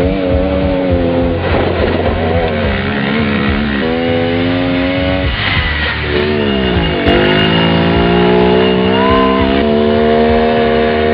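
Fin Komodo off-road vehicle's engine running under load and revving, its pitch falling steeply and then climbing again about six to seven seconds in.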